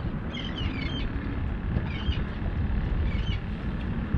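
Wind rumbling on the microphone, with short chirping bird calls three times.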